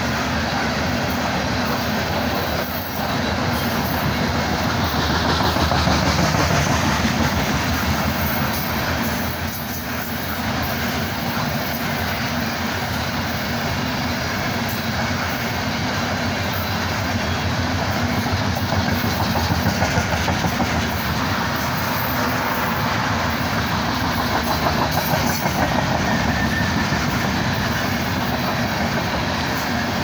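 Loaded coal hopper cars rolling past at close range: a steady, continuous noise of steel wheels running on the rails.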